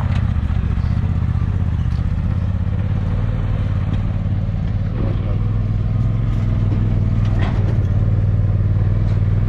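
A vehicle engine idling steadily, with a few short knocks along the way.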